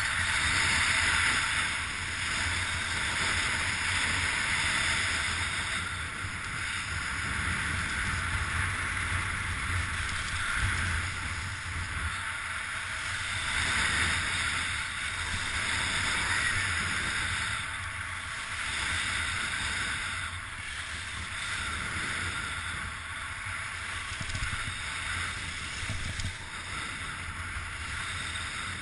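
Strong wind buffeting the microphone: a steady rushing hiss with a low rumble underneath, swelling and easing every few seconds.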